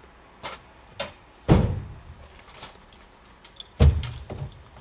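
Knocks and two loud bangs with a low boom on the metal body of a small park-railway brake wagon, as a man climbs out of it and handles its hinged side door.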